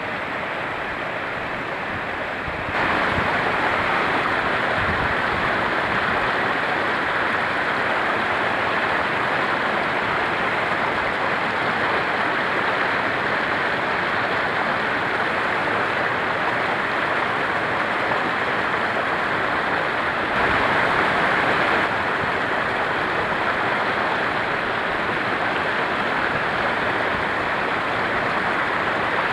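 Mountain stream rushing over small cascades between boulders: a steady roar of water that steps up in loudness about three seconds in and swells briefly again later.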